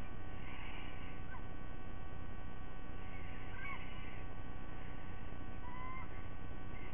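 A few faint, short, thin whistled calls from sea eagle chicks, heard over a steady mains hum.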